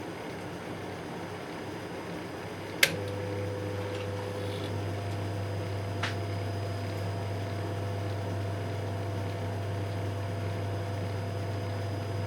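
Microwave oven running with a steady hum. About three seconds in, a sharp click is followed by a louder, deeper hum, and a fainter click comes a few seconds later.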